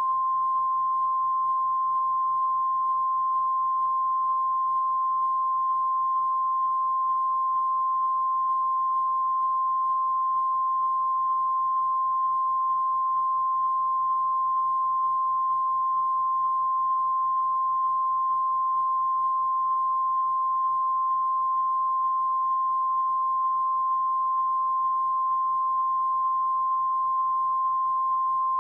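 Steady 1 kHz line-up test tone, the reference tone that runs with SMPTE colour bars, a single unbroken pitch. A faint low buzz sits beneath it.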